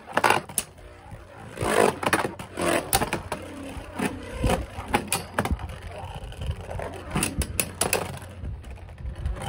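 Two Beyblade Burst spinning tops whirring and scraping around a plastic Beyblade stadium, with repeated sharp clacks as they collide.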